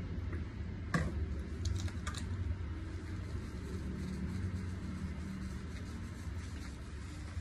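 Shampoo being squeezed from a plastic bottle and rubbed into a wet husky puppy's fur: a few sharp clicks and squishes about a second and two seconds in, then soft, quick rubbing strokes. A steady low hum runs underneath.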